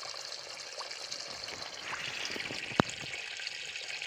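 Spring water pouring steadily from a pipe spout onto stones and a shallow puddle, with one sharp click a little under three seconds in.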